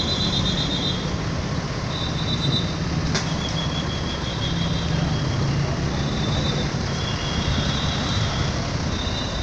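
Tour bus telolet horn playing short, high multi-tone bursts again and again over a running bus engine, with a sharp click about three seconds in.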